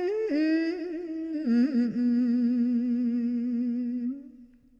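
A woman's solo voice in Khmer smot chanting, unaccompanied, drawing out one long wordless note with a wavering vibrato. It slides down in two steps to a lower note, holds it, and fades away near the end.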